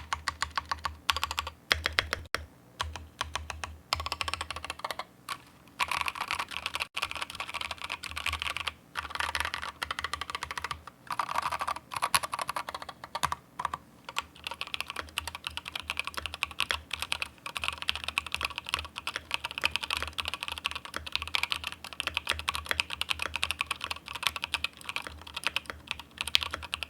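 Steady typing on an Akko MOD007 mechanical keyboard fitted with pre-lubed SP Star Melon switches in nylon housings and tall ASA-profile keycaps: fast runs of keystrokes broken by brief pauses.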